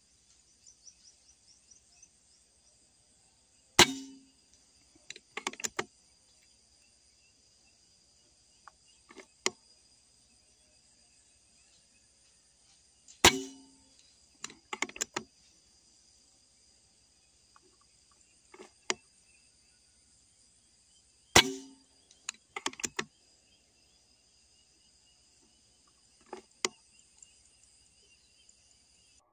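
Air rifle firing three shots several seconds apart, each a sharp crack followed a second or so later by a quick run of clicks, with a few fainter clicks between shots. A steady high insect drone runs underneath.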